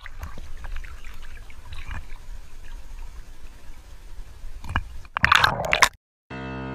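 Sea water sloshing and lapping against an action camera held at the surface, with small splashes and a low rumble. About five seconds in comes a louder burst of splashing and bubbling as the camera dips under. The sound then cuts out, and piano music begins just before the end.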